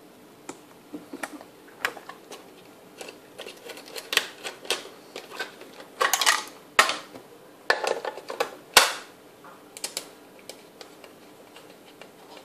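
Irregular clicks, taps and knocks of small plastic radio-control parts being handled and set down on a glass tabletop, with a few louder clattering clusters about halfway through.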